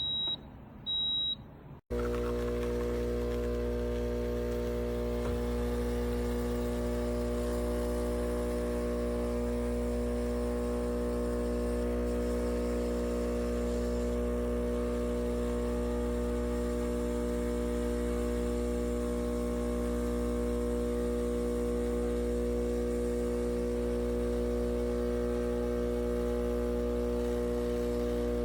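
Two short electronic beeps, then the Neretva 20-bar espresso machine's pump starts and hums loudly and steadily while pulling a shot.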